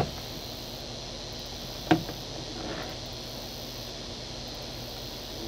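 A single sharp click about two seconds in, from handling the metal fittings of a compression tester kit in its plastic case, over a steady background of insects buzzing.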